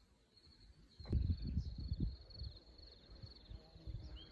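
A continuous high-pitched chirring trill, like a cricket or bush-cricket, runs throughout. From about a second in, irregular low rumbling gusts of wind buffet the microphone and are the loudest sound.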